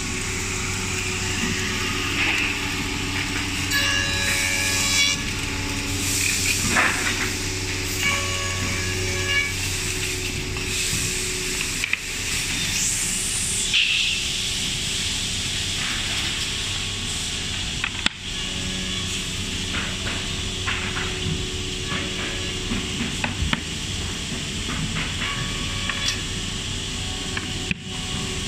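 Panel edge milling and sanding machine running: a steady motor hum under a loud hiss, with whining tones that come and go.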